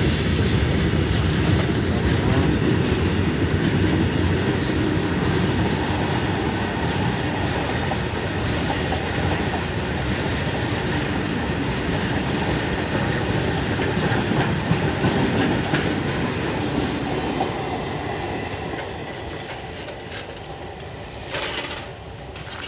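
Goods-train wagons rolling past on the rails: a steady rumble and clatter of wheels over the track, with a few short wheel squeals in the first six seconds. The sound fades slowly as the tail of the train draws away.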